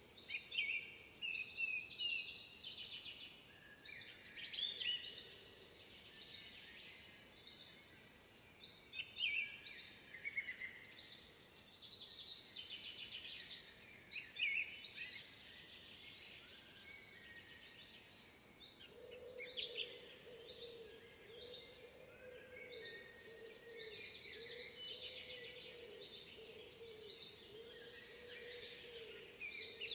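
Several songbirds singing and chirping, with short overlapping phrases and trills throughout. A faint, steady low hum joins about two-thirds of the way through.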